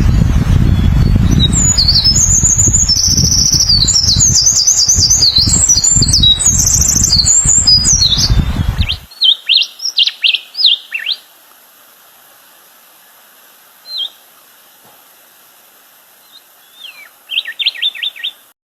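Songbirds singing in quick high chirping phrases over a loud low rumble, which stops abruptly about nine seconds in. After that, in a much quieter background, there are short bursts of song, a single call, and a rapid trill near the end.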